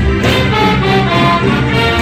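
Live band playing a Brazilian carnival marchinha, loud and steady, with sustained melody notes over a continuous beat.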